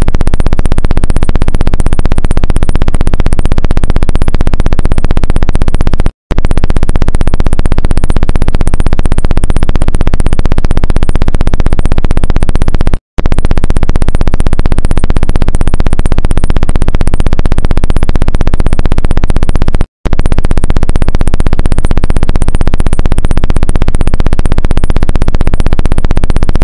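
Loud, steady electronic buzz, the same trend sound replayed over each clip, stopping dead for a moment three times about seven seconds apart.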